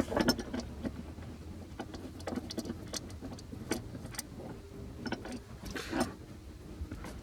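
Irregular clicks, taps and clatter of a hand tool and fasteners as a metal brace is fastened in with a nut and screw, over a faint low steady hum.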